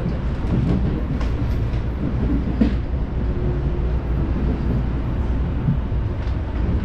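Inside a JR Musashino Line electric commuter train running on the track: a steady low rumble of the wheels and running gear, with a few sharp clicks from the wheels on the rails, the loudest just over two and a half seconds in.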